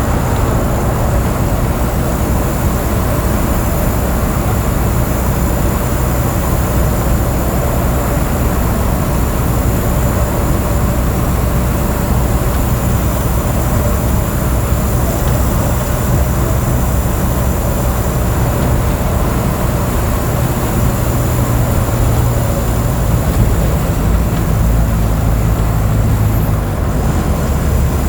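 Diesel engine of a Mercedes-Benz OF 1722M city bus running under way, a steady low drone with road noise; the engine note shifts in pitch about two-thirds of the way through and again near the end.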